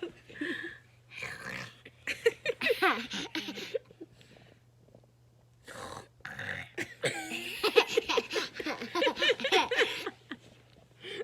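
A baby's voice making grunting, burp-like noises and giggles in two bouts, with a pause of about two seconds between them.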